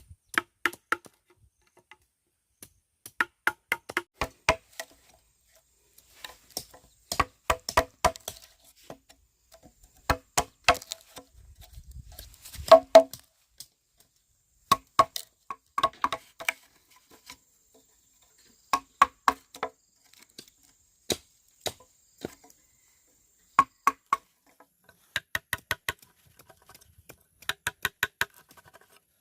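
A blade chopping bamboo in quick bursts of sharp strokes, several to a burst, with pauses between. Each stroke has a hollow, ringing knock from the bamboo tube.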